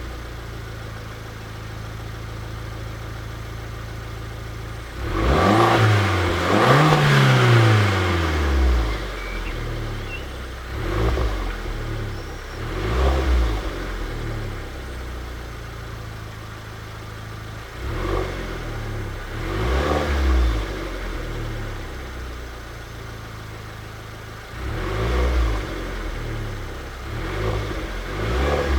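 Alfa Romeo MiTo Quadrifoglio Verde's turbocharged 1.4 four-cylinder engine, stock exhaust, idling and then blipped on the throttle. The biggest rev comes about five seconds in, rising and falling back to idle, and several shorter revs follow with idle in between.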